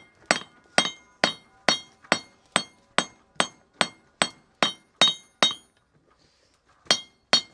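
Blacksmith's hand hammer striking hot steel on an anvil, forging a small knife blade: steady blows about two a second, each with a short metallic ring. The hammering pauses for about a second and a half, then resumes near the end.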